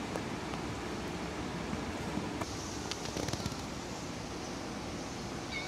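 Steady background hiss with a quick cluster of light crackling clicks about three seconds in, and a brief high kitten mew right at the end.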